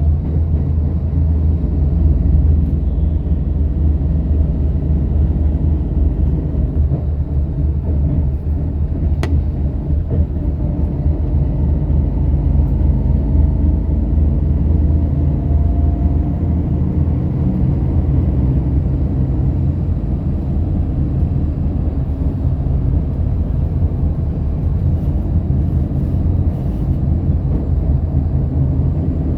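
Steady low rumble of engine and road noise heard inside a moving bus, with a single sharp click about nine seconds in.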